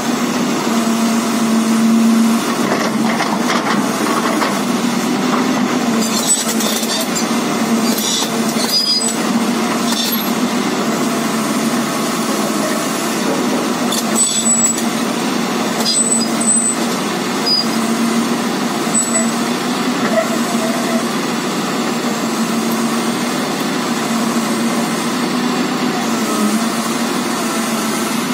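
Komatsu PC450 excavator's diesel engine running steadily under load as it drags a stripped excavator undercarriage on its steel tracks. Brief high metal squeaks and sharp clanks break in several times, mostly in the first two-thirds.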